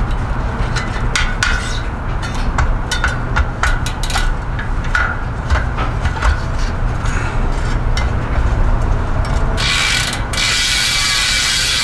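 Mountain bike rear hub's freehub pawls ratcheting as the wheel is turned by hand in uneven clicks, then buzzing steadily as the wheel spins freely from about ten seconds in.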